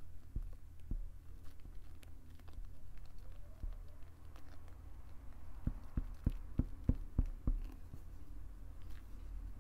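Silicone spatula stirring and folding shaving-foam slime in a glass bowl: soft wet squishing and scraping. A little past halfway comes a quick run of about seven soft knocks, roughly four a second.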